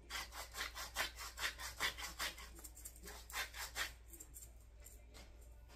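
Hand-twisted glass pepper-and-salt grinder milling seasoning, a fast run of short rasping grinds, about four or five a second, that stops about four seconds in.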